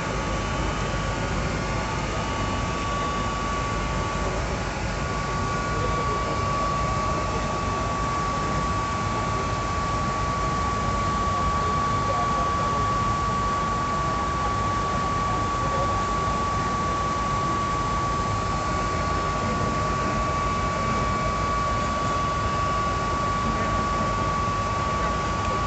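Vertical pump running with a steady mechanical noise and a constant high whine throughout, the sound of its high-vibration noise problem.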